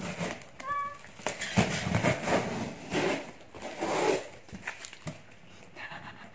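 Packing tape and cardboard on a shipping box being torn by hand, a series of short ripping sounds with pauses between them.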